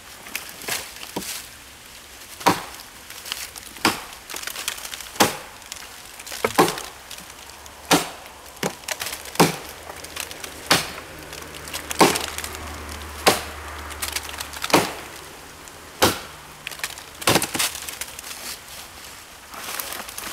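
Kukri chopping into a thick dead tree trunk: about a dozen hard, sharp blade strikes into the dry wood, roughly one every second and a half, with splintering, until the trunk is cut through.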